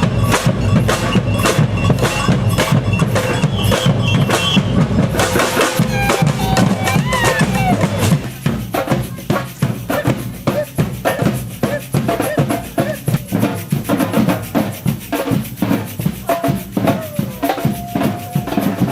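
Samba band drums playing a steady beat, loud at first and dropping in level about eight seconds in.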